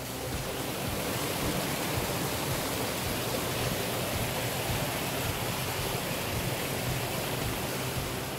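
Mountain stream rushing over rocks in small cascades, a steady rush of water.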